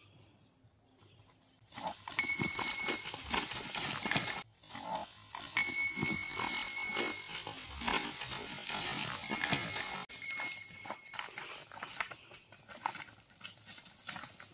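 Two young bulls fighting: a loud scuffle of repeated knocks and rustling as they shove head to head and their hooves churn through dry leaves and brush, starting about two seconds in.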